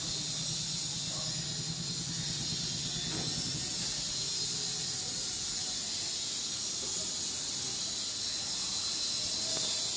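Steady high hiss of background noise, with a faint low hum under it in the first few seconds.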